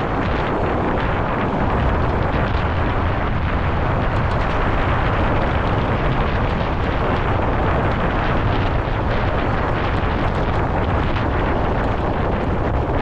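Steady wind rumbling over the microphone of a camera riding on a mountain bike during a fast descent, with tyre and trail noise and light scattered rattles.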